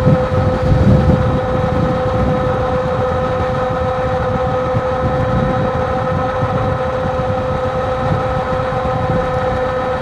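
Electric bike cruising at a steady speed: a steady whine with several overtones, over a rough low rumble of wind on the microphone.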